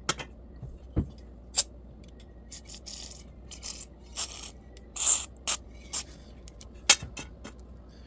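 Small metal carburetor parts from a Toro Power Clear 721 E snowblower being handled and cleaned: scattered sharp clicks and knocks, with a couple of short hissing or scraping bursts about three and five seconds in.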